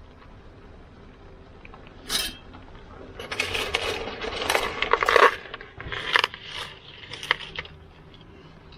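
Metal kitchenware clinking and rattling as it is handled: one sharp clink about two seconds in, then a couple of seconds of dense clattering, then a few scattered clinks.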